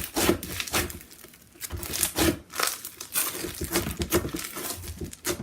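Crunchy slime being squeezed and poked by hand, giving irregular crackling crunches, several a second.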